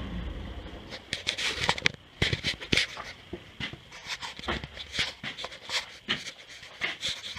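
Irregular clicks and clinks of small metal hardware being handled and moved about while someone rummages for a bolt.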